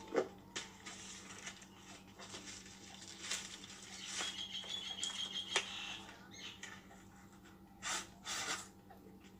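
Plastic parcel packaging rustling and crinkling as it is unwrapped by hand, with small clicks and knocks of handling. A brief high squeak sounds about four to five seconds in, and two louder rustles come near the end.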